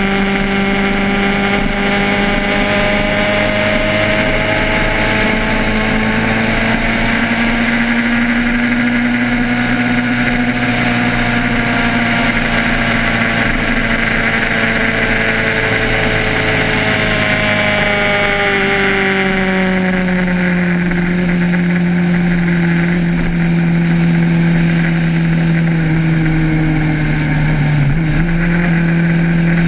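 Motorcycle engine running while riding at road speed, over a steady rush of wind and road noise. The engine note rises slightly, then drops about two-thirds of the way through and holds at a lower pitch.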